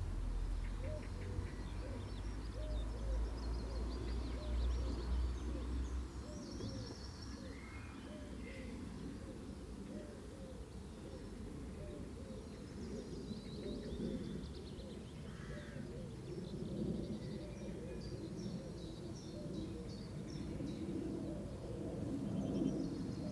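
Garden birdsong: high chirps and twitters from small birds over a run of low, repeated cooing notes. A low rumble sits underneath for the first six seconds or so.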